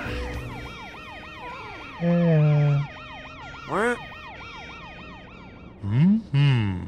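Cartoon emergency-vehicle siren yelping in a fast, steady up-and-down sweep. Over it come loud wordless pitched sounds: a held falling tone about two seconds in, a quick upward swoop near four seconds, and two short rise-and-fall calls near the end.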